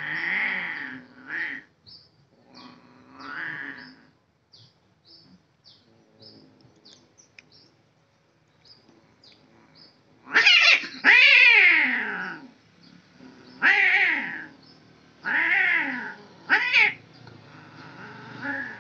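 Two male domestic cats yowling at each other in a territorial standoff. There are lower, growling wails in the first few seconds, then loud, drawn-out, wavering yowls from about ten seconds in, several in a row.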